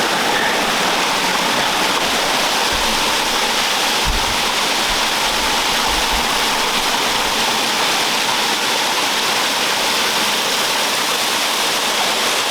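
A small waterfall with water rushing and splashing steadily close by, with a few faint low thumps in the first half.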